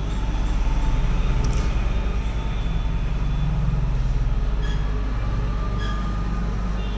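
Hot air rework station blowing a steady rush of air, with a constant low hum underneath, while it heats the phone's charging-port connector to loosen its solder.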